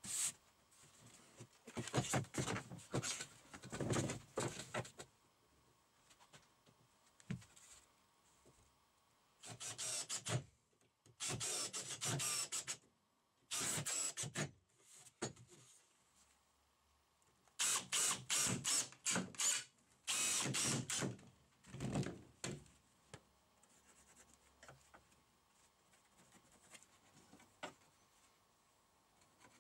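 Assembly of a wooden folding chair: a cordless drill-driver runs in short bursts driving screws, between knocks, taps and rubbing of the wooden parts being handled and fitted together, with quiet gaps between.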